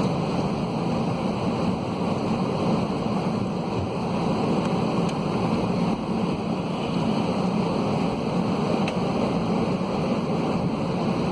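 Steady cabin rumble inside an Airbus A320-211 on the ground with its CFM56 engines running at low power, waiting in the queue for takeoff. It is an even, low noise with no rise in engine pitch.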